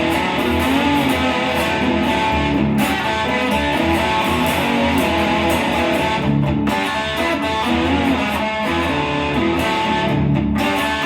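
Mini lap steel guitar being played with a slide bar, sustained notes gliding in pitch, with short breaks between phrases about three and six seconds in and near the end.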